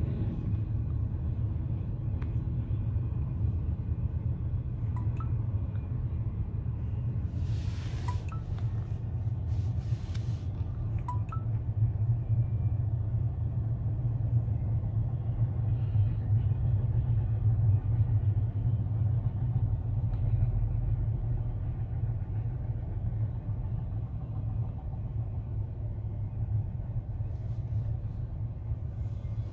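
Freight train rolling past with a steady low rumble, a few brief clicks about eight and ten seconds in.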